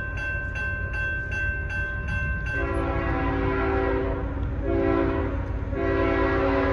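Diesel freight locomotive's air horn sounding for a grade crossing in the distance: a chord starts about two and a half seconds in, breaks off twice briefly and comes back in a long final blast. Before the horn, a higher steady ringing with regular strikes about twice a second, over a steady low rumble.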